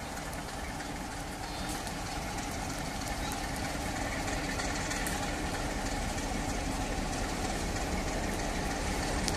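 Class 47 diesel locomotive's Sulzer V12 engine running as the locomotive approaches slowly, a steady low rumble getting gradually louder.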